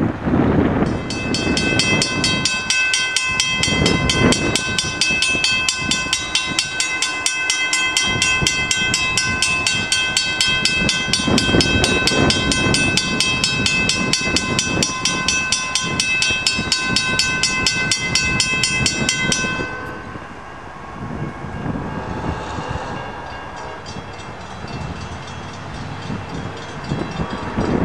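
Railroad crossing bell ringing rapidly and steadily while the crossing gates lower, cutting off suddenly about two-thirds of the way through once the gates are down. Low wind rumble on the microphone runs underneath.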